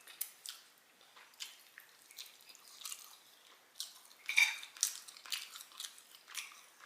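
Close-miked eating sounds: wet chewing and lip-smacking, a run of irregular short clicks, the loudest about four and a half seconds in.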